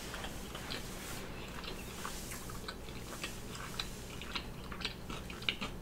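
A person chewing a mouthful of food with the mouth closed: faint, irregular small clicks.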